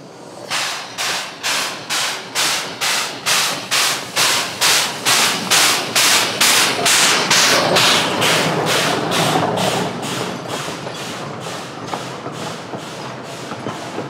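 Geared steam locomotive working under steam, its exhaust chuffing in a steady beat that quickens from about two to about three a second. The chuffs are loudest about midway, then grow fainter.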